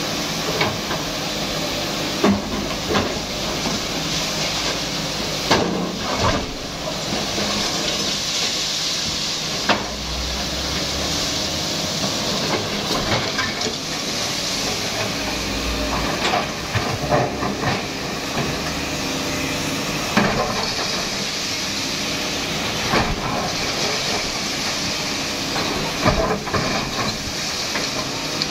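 Sany SY215C hydraulic excavator running steadily while its bucket breaks and drags concrete rubble, with irregular sharp knocks and crashes of falling concrete every few seconds.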